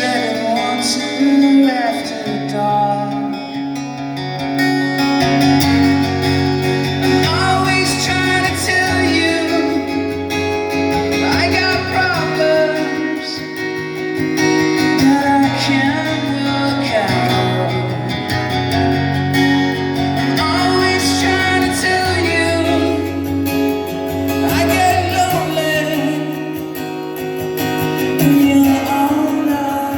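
Live band performance of a rock song: guitars and a bass line changing notes every few seconds, with some singing over them.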